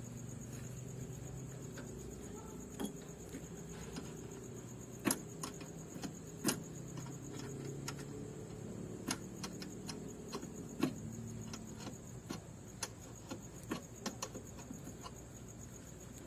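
Irregular sharp metallic clicks and clinks of a wrench on the bolts as a snail-type air horn's mounting bracket is bolted onto a vehicle, about one or two a second and louder from about five seconds in.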